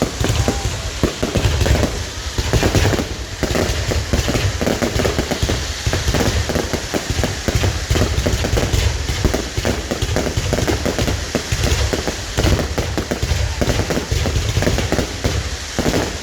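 Fireworks going off in a dense, unbroken barrage of bangs and crackling.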